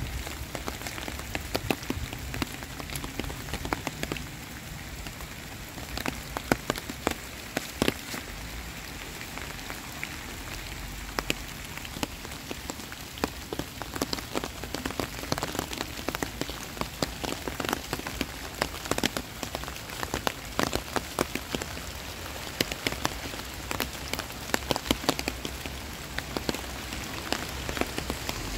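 Heavy rain falling: a steady hiss of rain on wet surfaces, with many sharp ticks of single drops landing close by.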